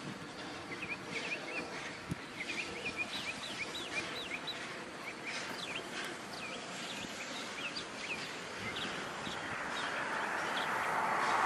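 Small birds chirping in a quick series of short rising chirps over outdoor background noise. Near the end the broad noise of an approaching vehicle swells steadily.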